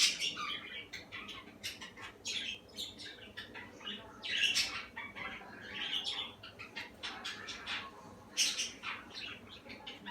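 Guinea pig chewing cucumber skin: quick, irregular crunching bites, several a second, with short pauses between runs of chewing.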